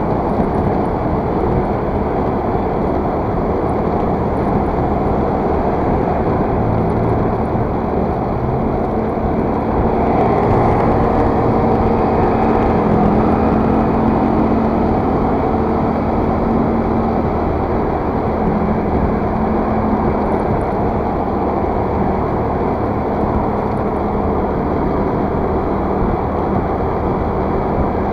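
Steady riding noise on a motor scooter: wind and road rush with the scooter's engine humming underneath. About ten seconds in an engine hum swells a little louder, then eases off by about twenty seconds.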